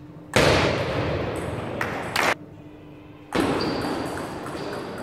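Table tennis rally: the celluloid-type plastic ball clicking off bats and table, with two sharp hits about two seconds in. Two louder stretches of noise, each about two seconds long, rise suddenly over the play.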